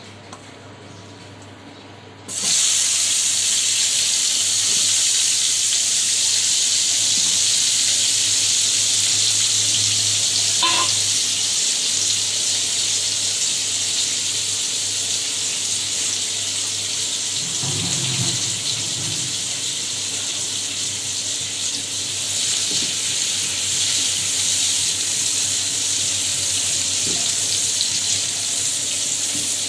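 Potato pieces frying in hot oil in a pan: a loud sizzle starts suddenly about two seconds in as they go into the oil, then runs on steadily. Faint knocks twice, near the middle.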